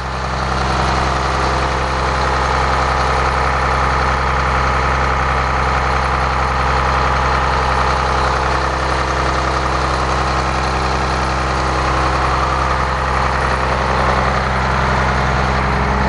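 Caterpillar C7 straight-six diesel engine idling steadily, heard close up at the open rear engine compartment of a Blue Bird All American bus.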